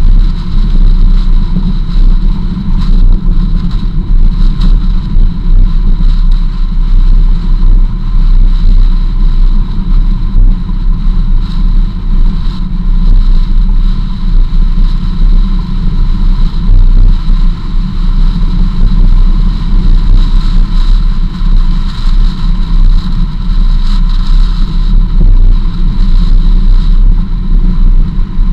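Jeep driving steadily along a gravel dirt road: a loud, continuous low rumble of engine and tyres on gravel, with a faint thin whine above it.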